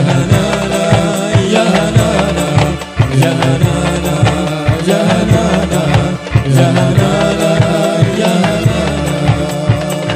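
Live sholawat music: male voices singing a devotional melody into microphones over rebana frame drums beaten in a steady, fast rhythm, amplified through a PA.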